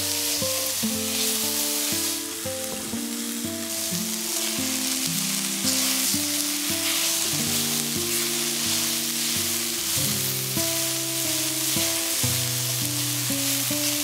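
Red onion, garlic and red pepper strips sizzling in olive oil in a stainless steel pan, stirred with a spatula. Soft background music of held, changing notes plays underneath.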